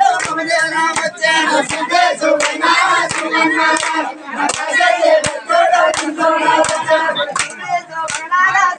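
Several men singing a chant together, with sharp hand claps scattered through it.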